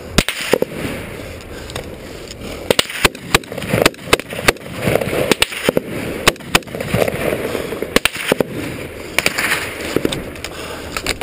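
Rifle shots in a firefight: many sharp cracks at irregular intervals, some coming in quick runs of two or three, with the scuffing of movement over loose rock between them.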